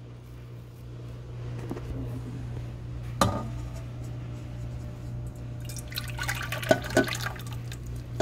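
Melted butter being poured into a stainless steel stand-mixer bowl, a short run of liquid pouring and dripping about six seconds in. A single knock about three seconds in, over a steady low hum.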